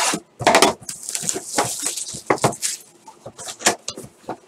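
Plastic shrink wrap being picked, crackled and torn off a sealed trading-card box, with a longer ripping rasp about a second in. It is followed by sharp clicks and taps from the cardboard lid and flaps as the box is opened.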